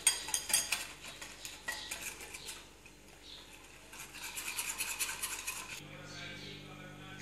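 Wire whisk beating instant gravy mix into water in a glass bowl: rapid clinking strokes of the wires against the glass, pausing about halfway and starting again briefly. A faint steady hum takes over near the end.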